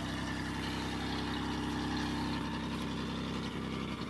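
2002 Chevy Malibu engine idling steadily, just started after sitting for about a month and a half.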